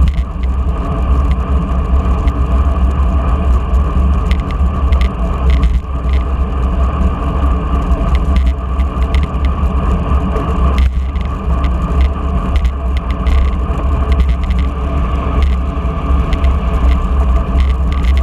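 Wind rushing over the microphone of a camera mounted on a road bike's handlebars while riding, with a steady deep road rumble and scattered light clicks.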